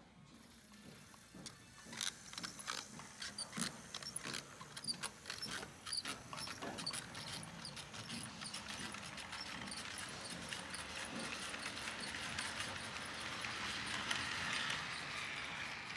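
Model train rolling past on sectional track: a run of sharp, uneven wheel clicks over the rail joints, with a rolling rumble that builds as the freight cars pass close and is loudest near the end.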